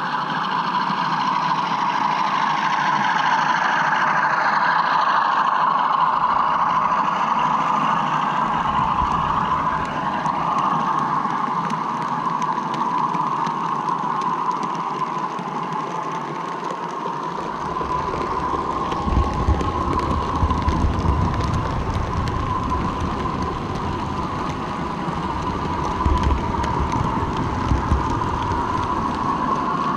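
A model railway train running on its track, heard through a camera riding on the train: a steady motor whine with the wheels rattling on the rails. From about halfway through, the running turns rougher, with sharp clicks over the track, loudest in two spells.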